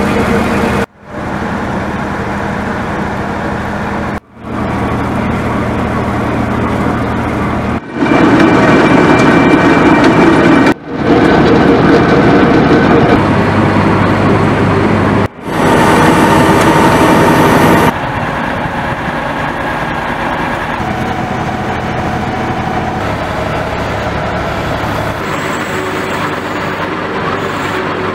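URB-2A2 truck-mounted drilling rig running during a drilling test: steady engine and machinery noise. It comes as several takes with abrupt cuts between them and is loudest in the middle stretch.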